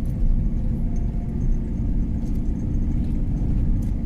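Car driving slowly on a dirt lane, heard from inside the cabin: a steady low rumble of engine and tyres on the rough surface, with a few faint rattles.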